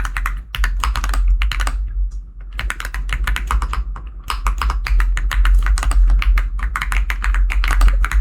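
Fast typing on a computer keyboard: rapid runs of key clicks with brief pauses between them, over a low steady hum.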